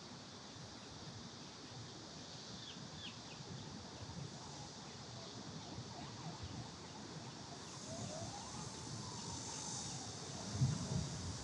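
City riverside ambience under a road bridge: a steady traffic hum with a high steady hiss that grows louder past the halfway point, and a few short chirps about three seconds in. Near the end a distant siren wails up and then slowly down, and there are a few low thumps.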